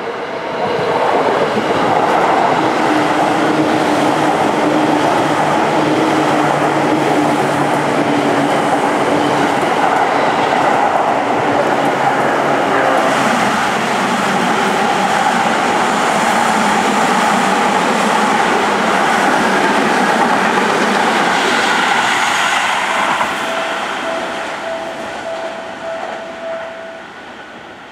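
Seibu 6000 series electric train passing through a station at speed without stopping, its wheels and motors loud for about twenty seconds before fading away. A level crossing warning bell dings in a steady repeating pattern at the very start and again as the train noise dies down.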